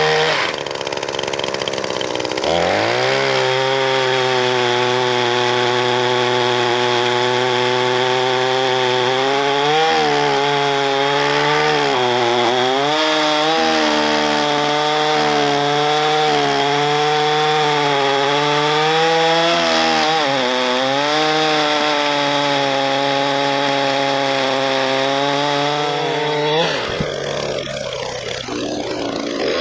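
Gas pole saw's two-stroke engine running at high revs while cutting branches, its pitch sagging briefly several times as the chain bites into the wood and recovering. Near the end the engine drops off sharply, then revs back up.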